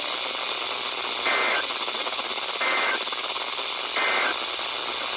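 The Emergency Alert System End of Message signal: three short bursts of raspy digital data tones, each about a third of a second long and about a second and a half apart, over a steady radio hiss. It marks the close of the alert test on the NOAA Weather Radio broadcast.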